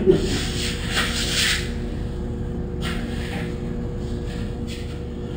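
Hand rubbing firmly over a stick-on tile to press out air bubbles: scratchy strokes, a long one through the first second and a half, then a couple of short ones, over a steady hum.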